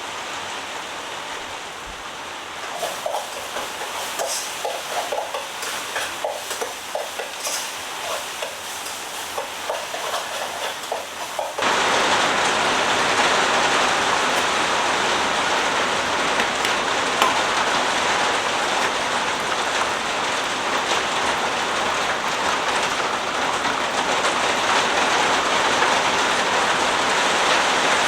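Steady rain on the hut's roof, with scattered light clicks and crackles through the first half. About twelve seconds in it jumps suddenly to heavy, loud, even rain on the roof.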